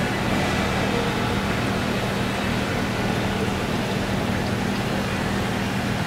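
A steady, even rush of churning water, with a low steady hum beneath it.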